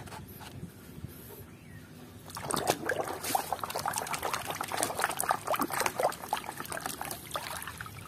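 A hand sloshing and splashing through muddy water in a plastic tub, starting about two seconds in after a quieter trickle.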